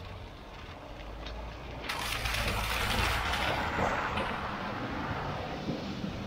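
Car tyres hissing on a wet road. About two seconds in, this gives way to a car driving through a flooded ford: a loud rushing splash of water thrown up by the tyres, over a low engine rumble.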